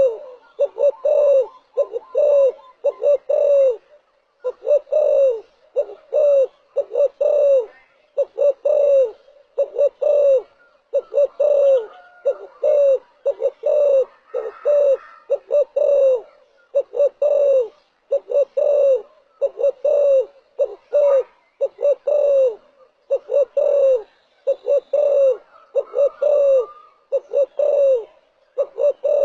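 Spotted dove cooing: short phrases of low coo notes, each note dipping slightly in pitch, repeated about every two seconds.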